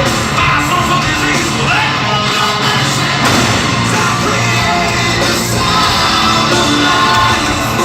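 Rock band playing live through a large concert PA, loud distorted guitars, bass and drums with a singer's voice, heard from within the audience.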